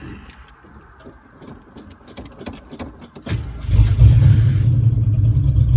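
Matador's 5.9-litre (360) V8 cranks and catches about three seconds in, after a few light clicks. It settles into a loud, steady low rumble.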